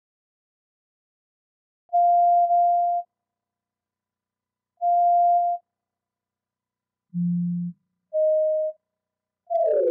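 Software synthesizer of a multi-touch table sequencer playing single electronic tones as notes are touched. There is a steady mid-pitched tone about two seconds in, another around five seconds, a short low buzzy tone near seven seconds, then a slightly lower mid tone, and a tone sliding down in pitch at the very end.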